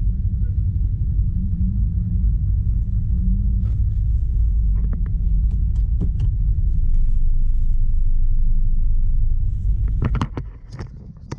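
Steady low rumble of a moving road vehicle, with a few scattered clicks in the middle; the rumble drops away sharply near the end.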